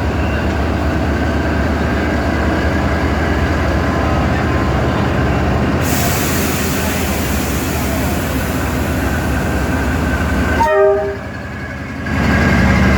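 D19E diesel-electric locomotive running under load with a steady low rumble as it pulls a passenger train away. A short pitched toot sounds about eleven seconds in.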